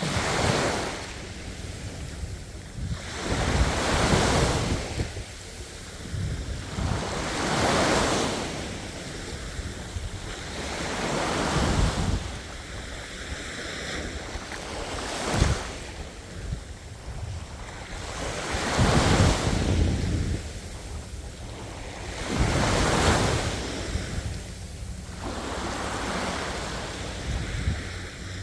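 Ocean waves breaking and washing in, one surge every three to four seconds, each swelling and then hissing away.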